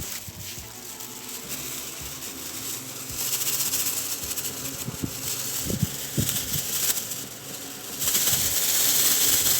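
Electric fan running on a newly fitted run capacitor: motor hum under a rush of air from the blades. It grows louder in a step about three seconds in and again near the end, with a few light knocks around the middle. The fan now runs properly on its own, showing the old capacitor was the fault.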